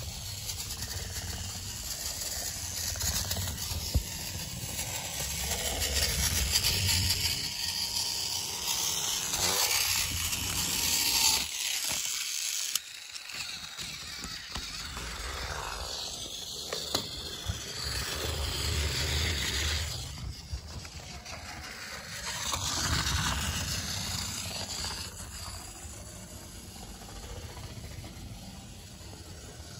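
Battery-powered Tomy and TrackMaster toy trains whirring and rattling along plastic track, swelling louder and fading again several times as they pass close by. The sound drops off abruptly about a third of the way in.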